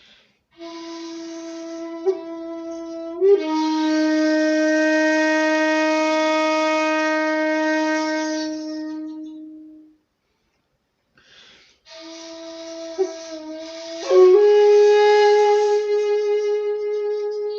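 Jinashi shakuhachi, a 1.7-length bamboo end-blown flute, playing two long breathy held notes with a short pause between them. Each phrase has quick grace-note flicks, and the second steps up to a higher note about two-thirds of the way through and holds it.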